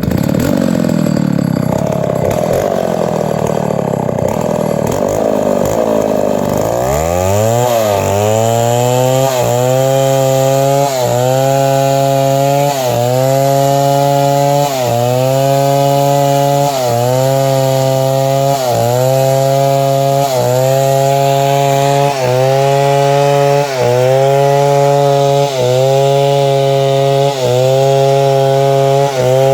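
Chainsaw running at high revs while cutting wood. About seven seconds in it settles into a steady high engine note that dips briefly and recovers about every two seconds. Before that the pitch sweeps up and down.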